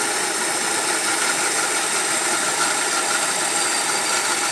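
Inland diamond band saw running steadily, its diamond blade grinding slowly through the thick glass base of a wine bottle as the cut nears its end.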